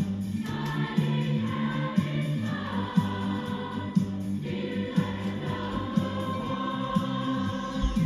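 Large mixed choir singing long held chords, with a steady beat of sharp percussive hits about once a second, played on a television.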